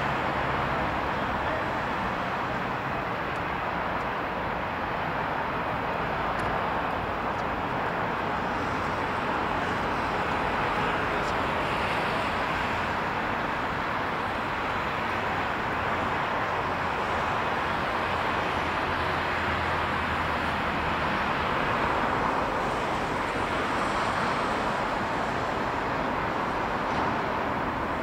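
Distant jet engines of an Airbus A319 (CFM56 turbofans) during its landing rollout and taxi. They make a steady, even noise with no distinct tones.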